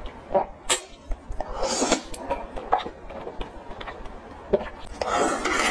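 Close-miked mouth sounds of eating grilled eel: wet smacks and clicks of biting and chewing. There are two longer, noisier sucking sounds, one about a second and a half in and one near the end.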